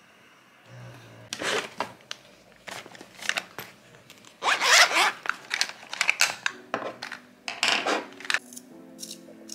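A shiny plastic packet crinkling and rustling in bursts as it is handled. Background music comes in about two-thirds of the way through.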